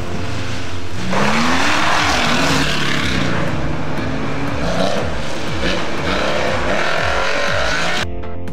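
Classic Porsche 911 rally cars passing at speed, their air-cooled flat-six engines revving up and falling away over and over through gear changes. Near the end, music takes over.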